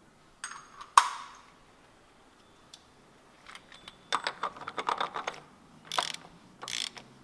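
A sharp metallic clank about a second in, then a ratchet wrench clicking in quick runs and short strokes from about four seconds, as the oil filter housing is screwed back on.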